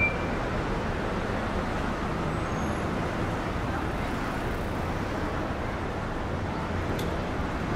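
Steady city street traffic noise from a line of cars in slow, stop-and-go traffic, an even hum with no distinct events.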